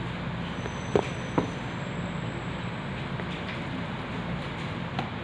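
A phone LCD screen assembly being handled in the hands: two sharp taps of the plastic panel about a second in, and a lighter click near the end, over a steady background hum.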